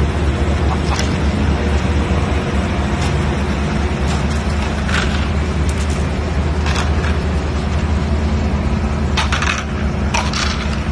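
Heavy machinery running with a steady low engine rumble and hum as the oil rig module is moved over snow. Short sharp creaks and cracks break through about four times, the last ones near the end.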